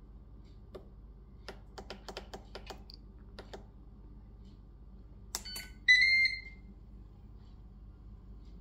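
A series of light clicks, then a single short electronic beep about six seconds in, the loudest sound here. The beep is typical of the control panel on a Ninja Foodi MAX multi cooker being set.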